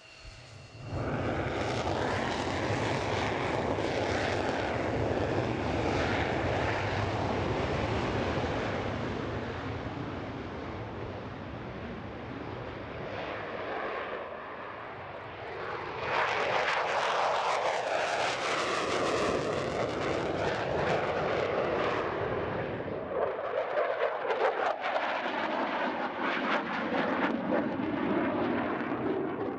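F-16 fighter's jet engine running in afterburner through the takeoff and climb-out, a loud steady roar. The roar jumps up suddenly about a second in and swells again about halfway through with a sweeping rise and fall in pitch as the jet passes. Near the end the roar turns fluttery.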